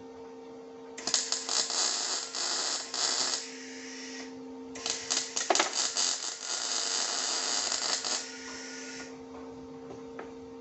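Electric arc welding: two runs of the arc crackling and sizzling, with sharp pops, the first about a second in and lasting some three seconds, the second starting near five seconds and lasting about four, with the welder's steady hum underneath.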